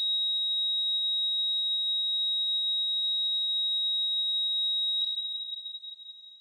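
Hospital heart-rate monitor's continuous high-pitched flatline tone, the monitor's sign that no heartbeat is detected; it fades out about five seconds in.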